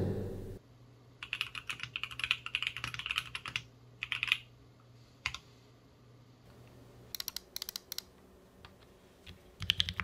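Typing on a mechanical keyboard: quick runs of clacking keystrokes in several bursts, with pauses between them.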